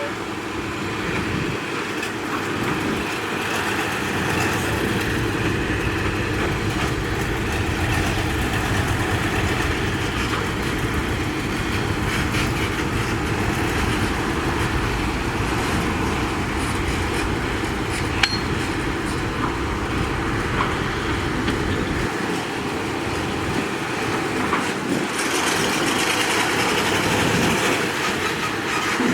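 Heavy diesel engine of a ten-wheel dump truck running steadily, with one brief sharp knock about two-thirds of the way through.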